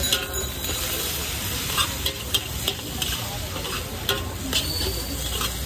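Metal spatula scraping and clanking against a steel wok as noodles are stir-fried, over a steady sizzle. The sharp clanks come at irregular intervals, roughly one every half second to second.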